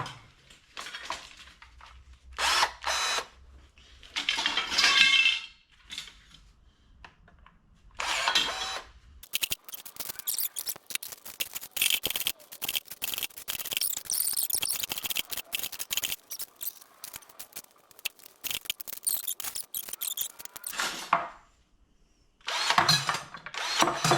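A power tool cutting up scrap copper pipe and wire: a few short cuts of about a second each, then one long cut of about ten seconds with a dense, rapid crackle, and a last short burst near the end.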